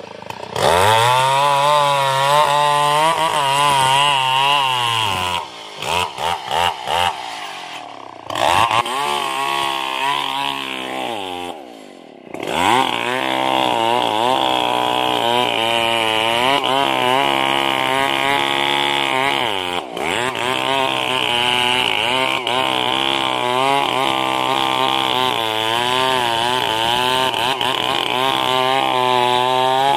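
Large two-stroke chainsaw cutting into a merbau hardwood trunk at full throttle, its engine pitch wavering under load. In the first twelve seconds it drops back several times, with a few short revs around six to seven seconds in, then runs flat out without a break.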